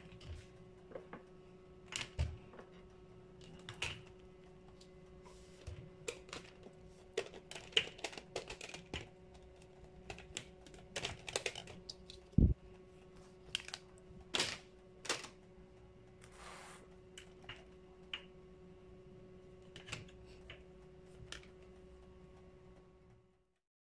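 Scattered clicks and light knocks of condiment dispenser bottles with metal pour spouts being handled and set into a plastic basket, with one sharper knock about halfway through. A faint steady hum runs underneath.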